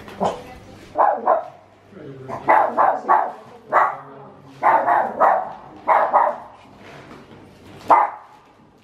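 Dog barking repeatedly: about a dozen short barks, some single and some in quick pairs.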